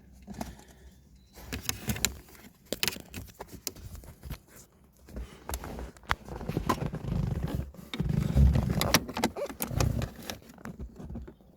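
Hand work on a parking brake cable as its end is worked free of its holder: scattered sharp metallic clicks and scrapes, with a denser run of low knocks and rubbing between about seven and ten seconds in.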